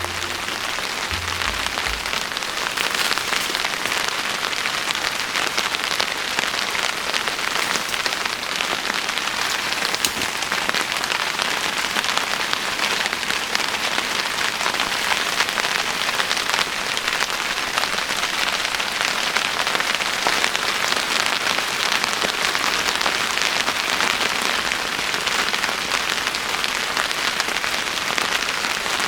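Steady rain falling: a continuous, even hiss of many drops.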